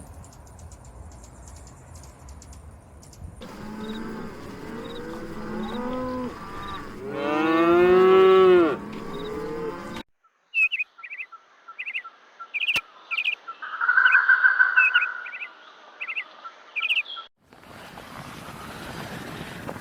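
Cow mooing in drawn-out calls, the loudest near the middle. After a break, a bird chirps in short, quickly repeated notes, and a stretch of rushing noise follows near the end.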